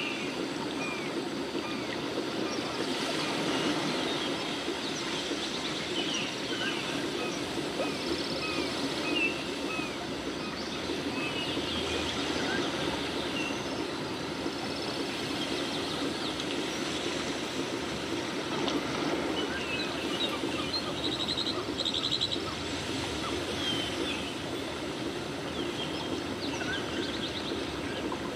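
Steady rushing background noise with many short bird chirps and twitters scattered throughout.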